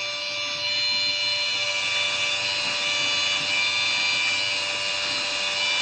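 Small electric transfer pump running with a steady whine, pumping windshield washer fluid through a hose into a tractor tire. Washer fluid poured from a jug splashes into the plastic bucket the pump draws from.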